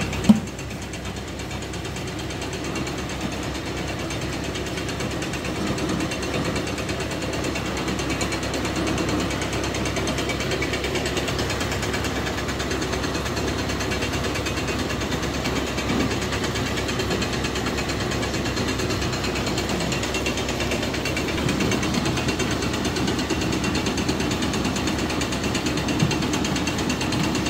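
1950 Farmall Cub tractor's four-cylinder engine running steadily. It is the engine that powers a corn grist mill.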